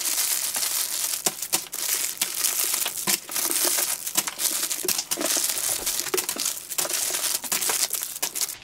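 Clear plastic wrappers on packaged squishy toys crinkling and rustling as hands sort through a box full of them, a continuous stream of crackles.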